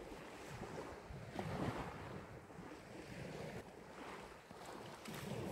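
Small waves lapping on a pebble beach, rising and falling gently, with wind on the microphone.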